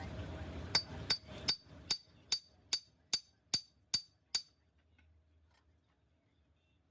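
A hammer striking metal ten times in an even rhythm, about two and a half blows a second, each blow ringing briefly. A rumbling background noise fades away during the first blows.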